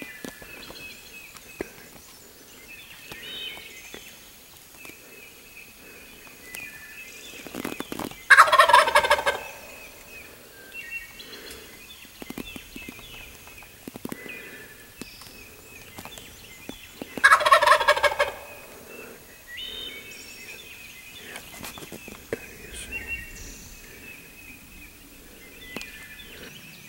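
Wild turkey gobbler gobbling from its roost, twice, about nine seconds apart, each gobble a loud rattling burst of about a second. Songbirds sing faintly throughout.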